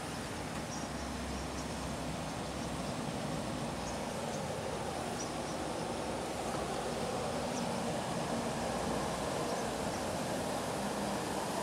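Heavy trucks approaching along the road from a distance, a steady engine and tyre hum that grows slightly louder toward the end.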